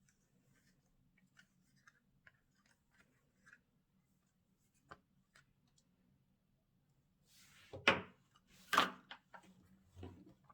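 Slime being mixed and squished by hand: faint sticky clicks and crackles, then two louder squelches about eight and nine seconds in and a softer one near the end.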